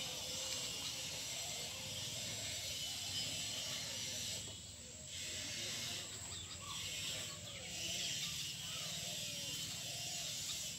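Steady high hiss of open-air ambience that drops away briefly several times, with faint chirping calls underneath.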